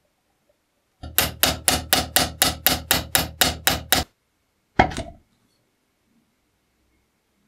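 About a dozen quick, even hammer strikes, roughly four a second, then a pause and one heavy knock as the cast-iron charcoal iron is set down on a wooden table.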